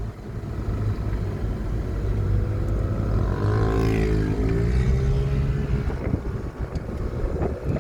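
Traffic: a steady low engine hum, with a second, higher engine note in the middle whose pitch dips and climbs again as it passes.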